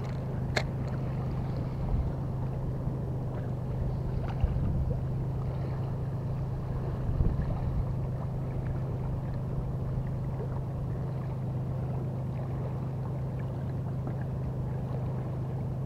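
A steady low motor-like hum, with light wind noise on the microphone and a single sharp click about half a second in.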